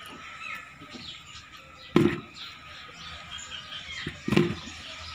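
Handfuls of brined, salted lemon halves dropped into a plastic bucket, landing with two sharp thuds about two seconds apart. Birds chirp in the background.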